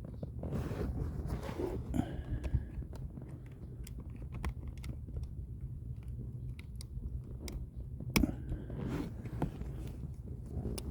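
Scattered light clicks, taps and rustling of hands working the parts of a seat belt retractor back together.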